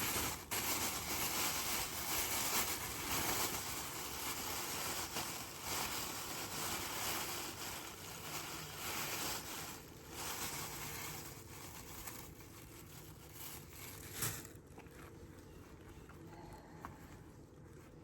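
Rustling and crinkling of cloth and alpaca wool being handled, uneven and fairly loud for about fourteen seconds, with a single knock near the end before it quiets down.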